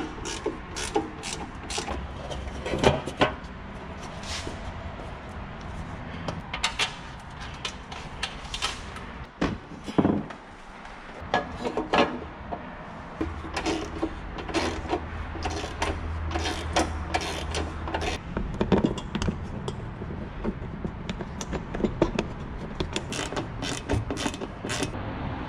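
Socket ratchet clicking in short runs as the bolts on a forklift's body panels are tightened, with knocks and clatter as the panels and step plate are fitted.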